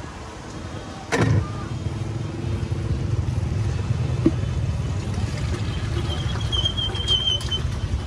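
A motor vehicle engine running close by, a steady low rumble. A sharp knock about a second in is followed by the rumble getting louder.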